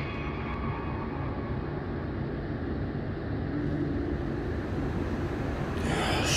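A steady low rumble with a faint hum in it, and a short burst of hiss near the end.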